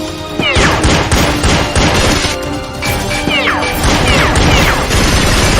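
Action background music under a rapid string of gunfire and impact sound effects, with falling whistling tones about half a second in and again after three seconds.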